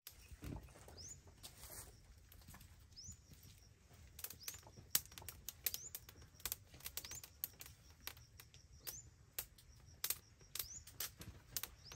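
Scattered light clicks and taps, coming more thickly in the second half. A short rising chirp, like a small bird's, comes every couple of seconds.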